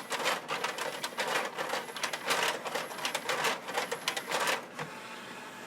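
JVC CD/DVD changer's disc tray closing: its mechanism clicking and rattling in a quick, irregular run that stops about five seconds in.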